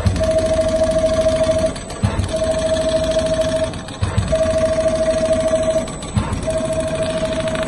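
Richpeace automatic rotating CNC sewing machine stitching leather upholstery: rapid, steady needle ticking over a high motor whine. It runs in stretches of about a second and a half, stops briefly between them, and gives a low thump at each stop.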